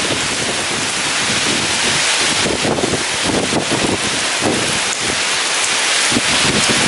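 Heavy rain pouring steadily, with strong wind gusting through it in uneven low swells.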